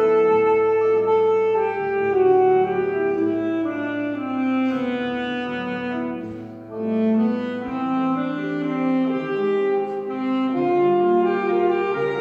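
Alto saxophone playing a melody of held notes with piano accompaniment. The saxophone line breaks off briefly a little past the middle, then carries on.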